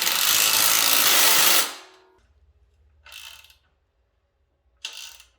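Power tool running hard for about two seconds, then two short bursts, driving in the bolts that mount the ATV's A-arms.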